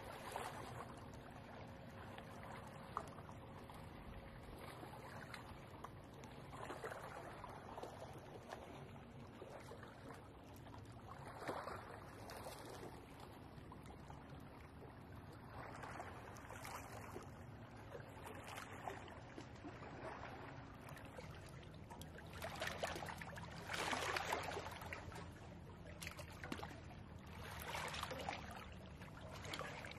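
Small waves lapping at a lakeshore, soft irregular splashes every few seconds, loudest about three quarters of the way through.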